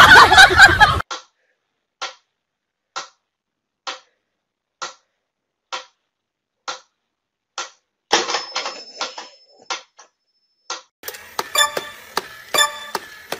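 A mechanical pyramid metronome ticking steadily, about one tick a second. Near the end come faster clicking and whirring from a battery-powered crawling toy soldier.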